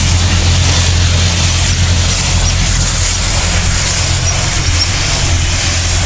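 Small petrol engine of a garden machine running steadily at a constant speed, with a strong low hum under a broad hiss.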